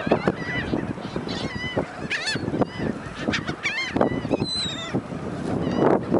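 A flock of gulls squabbling over food: many short, overlapping squawking calls, with scattered sharp knocks among them.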